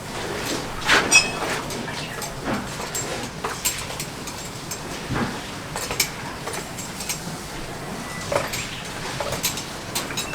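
Farrier's hand tools working on a horse's hoof: irregular clicks, knocks and scrapes, with a brief metallic clink about a second in.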